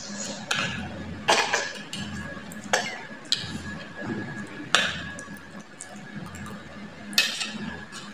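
Metal spoons clinking and scraping against plates as two children eat noodles, with about seven sharp clinks spread through. A faint steady high tone runs underneath.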